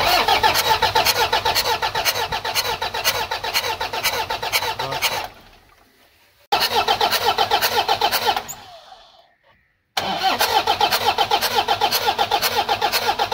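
Toyota 2KD four-cylinder common-rail diesel cranked on its electric starter in three bursts of a few seconds each, a quick steady chug that stops and fades each time without the engine picking up. It is a hard-start, which the mechanic puts down to a weak injector.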